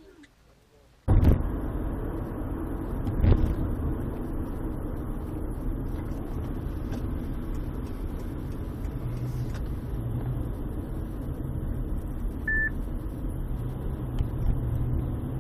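Steady road and engine rumble of a moving car heard from inside the cabin, starting abruptly about a second in. A thump comes a couple of seconds later, and a short high beep sounds near the end.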